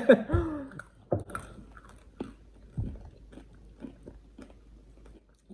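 People chewing and crunching small candies close to the microphone: irregular crisp crunches and mouth clicks, with a couple of brief murmurs.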